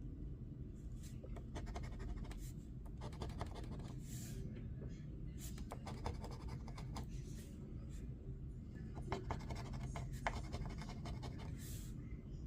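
Scratch-off lottery ticket being scratched, quick rasping strokes coming in several spells with short pauses between them, over a low steady background hum.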